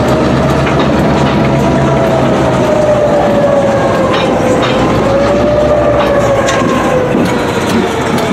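Railroad tank cars rolling through a street grade crossing, their wheels clicking and clacking over the rails, with a steady tone that wavers slowly in pitch, typical of wheel-flange squeal.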